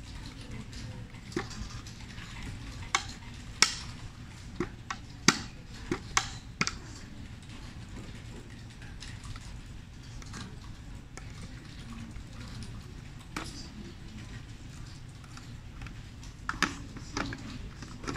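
Plastic clicks and knocks from the dust container of a Kranich canister vacuum cleaner being handled and its latch snapped shut. A scattering of sharp clicks, most of them in the first seven seconds and a few more near the end.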